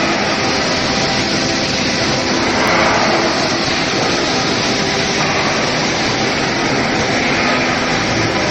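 Stainless steel pipe induction heat-treatment line running: a steady, loud, even machinery noise with a few faint steady tones beneath it.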